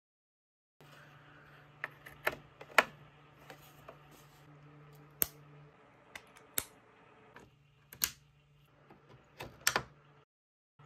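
XLR cable plugs clicking as they are pushed into a microphone and into a mixer's XLR inputs: a string of sharp clicks and snaps of the connectors and their latches, over a low steady hum.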